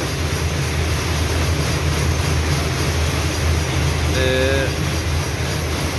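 Steady machinery din of a power-loom weaving shed, other looms running with a constant low rumble and clatter.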